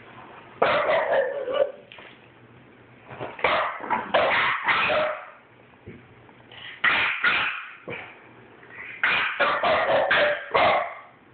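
French bulldogs, an adult and a young puppy, barking at each other in four short spells of a second or two, with quiet gaps between.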